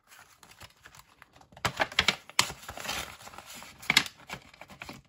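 Euro banknotes and the pages of a ring-binder budget planner being handled and flipped: irregular crisp paper rustles and small clicks, loudest about two seconds in and again near four seconds.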